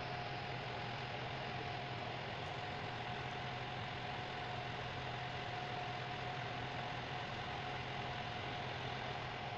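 A ferry's engine running steadily, a low hum with a steady higher whine over it, along with the even rush of water along the hull.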